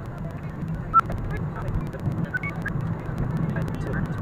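Car dashcam's in-cabin audio sped up about thirty-fold: a steady low hum of road and engine noise with rapid squeaky chirps from sped-up voices and many short clicks, the sharpest click about a second in.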